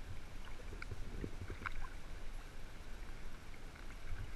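Water lapping and small splashes right at the microphone on the surface of a pool, with a few light ticks about one to two seconds in, over a steady low rumble.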